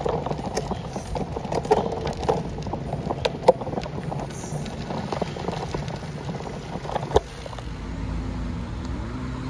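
Bicycle rattling and ticking as it is ridden over a paved path, with a couple of sharper knocks. About eight seconds in, a motor vehicle's engine hum sets in.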